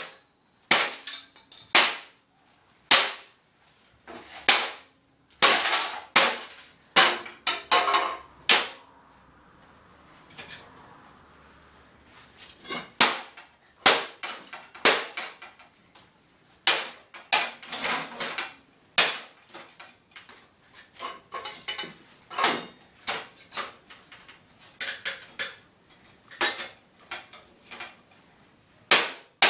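A hammer repeatedly striking a desktop computer tower case, a rapid, irregular series of sharp metal-and-plastic impacts, with a quieter few seconds about a third of the way in.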